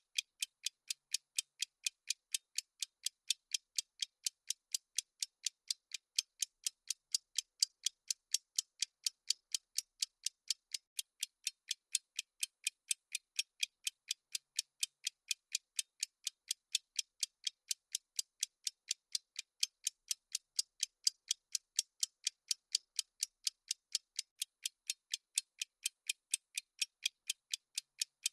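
Countdown timer's ticking sound effect: fast, perfectly even, high, sharp ticks with no change in pace.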